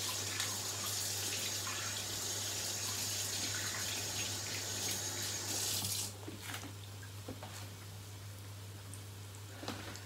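Kitchen tap running into a sink while hands are rinsed under the stream; the tap is shut off about six seconds in. A steady low hum runs underneath.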